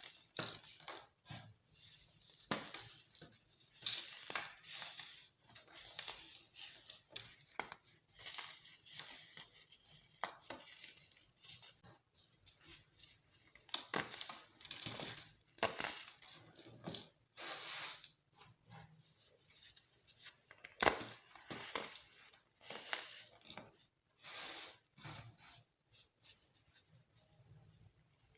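Dyed baking soda being crushed, crumbling with irregular crisp crunches and crackles and scattered sharp snaps.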